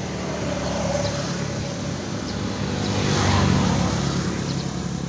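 A motor vehicle passing on the road: its engine hum grows louder to a peak about three and a half seconds in, then fades.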